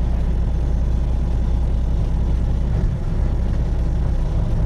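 Freightliner Classic XL semi truck's diesel engine running with a steady low rumble.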